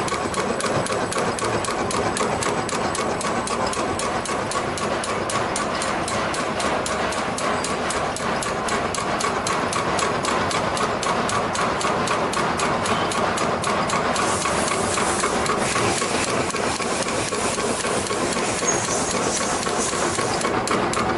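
Staple- and clip-making machine running empty, its mechanism clattering in a fast, even rhythm of several strokes a second while it is run in so the moving parts get lubricated. A high hiss joins in for about six seconds near the end.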